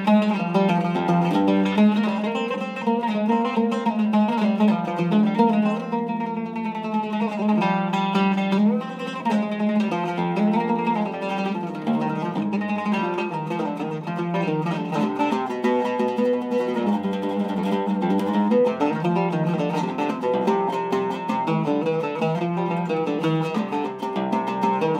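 Cedar-top Zeryab oud played with a plectrum: an unbroken stream of plucked notes in quick melodic phrases.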